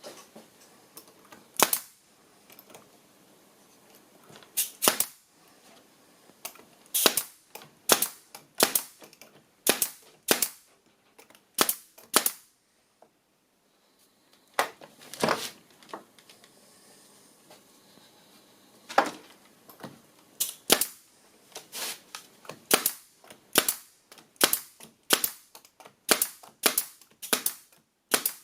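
Nails being driven into timber: a series of sharp cracks, irregularly spaced and often in quick pairs, with a short pause about halfway.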